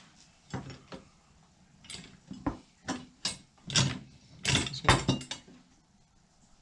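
Metal spreader parts knocking and clattering as a bolt is worked through the lined-up holes of the cross brace and hitch: a string of short, sharp knocks, the loudest about five seconds in.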